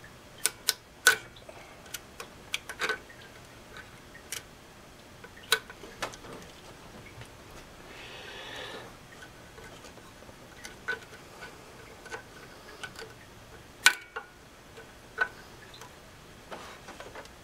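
Irregular sharp metallic clicks of a hand wrench being worked on a radiator hose clamp, coming in small clusters, with a brief soft rustle about eight seconds in.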